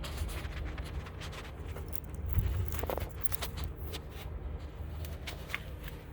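Footsteps and rustling handling noise, irregular clicks and scuffs with a louder thump about two and a half seconds in, over a steady low hum.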